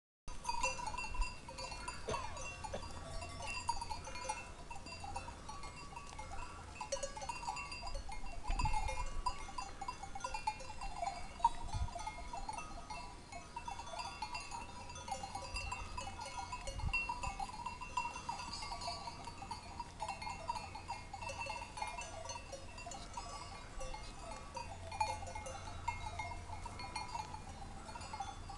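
Bells hung on a grazing flock of goats and sheep clinking irregularly and continuously, many small strikes at a few fixed pitches.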